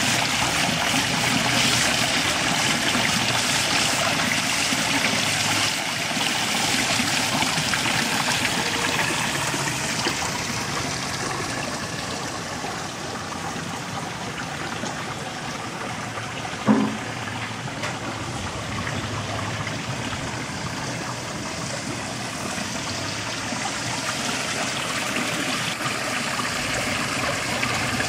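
Water pouring in a sheet off a stone spillway into a pool, a steady splashing rush that gets somewhat quieter through the middle and louder again near the end. One short thump a little past halfway.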